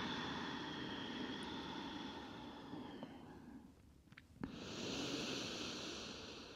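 A person breathing slowly and audibly while holding a yoga pose: a long breath, a short pause with a faint click, then another breath.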